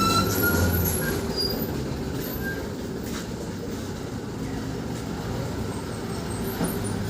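High-pressure washer running, a steady noise of motor hum and water spray.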